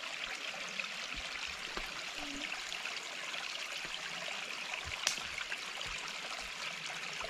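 Water trickling and running steadily through a beaver dam into a small forest stream. A single light click sounds about five seconds in.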